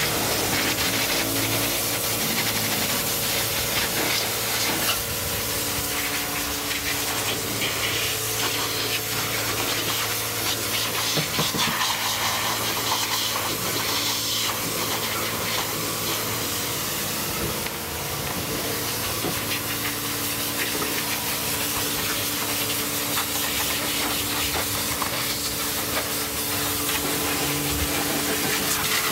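Pressure-washer jet spraying water onto a car's wheels and bodywork: a steady loud hiss of spray, with a steady low hum underneath, easing briefly about halfway.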